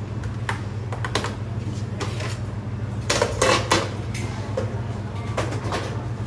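Kitchen clatter: scattered clinks and knocks of stainless-steel trays and utensils, busiest a little past the middle, over a steady low hum of the kitchen's ventilation.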